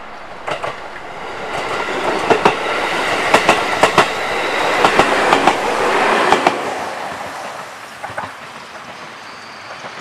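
JR Central 373 series electric limited express train passing close by. The run builds to its loudest as it goes past, with pairs of wheel clicks over the rail joints, then fades away after about seven seconds.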